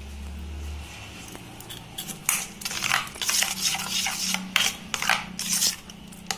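Steel spoon stirring thick ground peanut chutney in a stainless steel bowl, scraping against the metal. The scrapes start about two seconds in and repeat two to three times a second.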